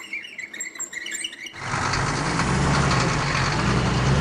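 A truck engine comes in about a second and a half in and runs steadily with a low, even hum. Before it there are only a few faint high chirps.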